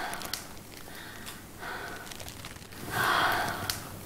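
A woman's breathy sighs and gasps of pleasure, three soft ones, the last and loudest about three seconds in.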